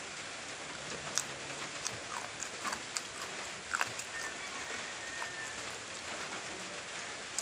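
Eating sounds: scattered small clicks and smacks of chewing and tearing food with the fingers, over a steady hiss.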